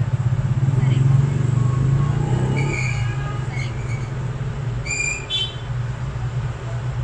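A steady low mechanical hum, with a few short high-pitched beeps in the middle, the last a quick run of rising steps.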